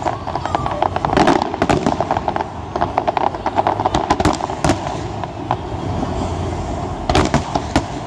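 Aerial fireworks display: shells bursting in rapid, overlapping bangs and crackles, densest about a second in, from about three to five seconds in, and again near the end.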